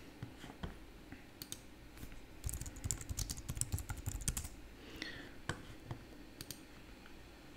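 Faint computer keyboard keystrokes: a few scattered clicks, then a quick run of rapid typing in the middle, and a couple of single clicks near the end.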